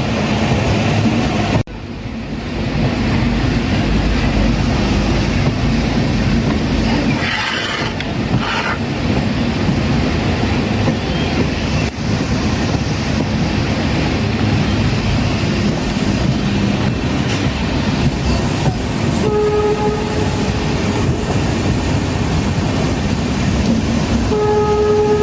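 Train running with a steady, loud rumble of wheels on track, then two horn blasts of about a second each in the last few seconds.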